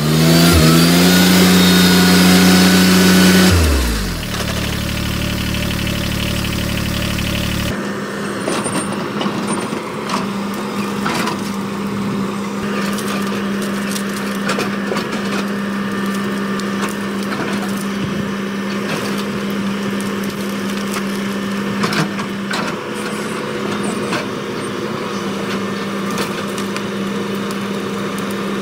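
Compact tractor engine revving hard as it spins its wheels stuck in mud, its pitch climbing and then dropping off about 4 s in. After that an excavator's engine runs steadily while its bucket tears through dead brush and branches, with scattered cracking and snapping of wood.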